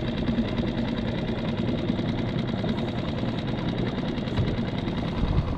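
Small outboard motor on a one-person skiff running steadily with an even, rapid beat.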